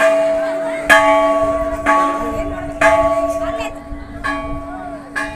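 A temple bell being rung by hand, struck about six times at roughly one-second intervals. Each strike rings on with a steady, fading tone that overlaps the next.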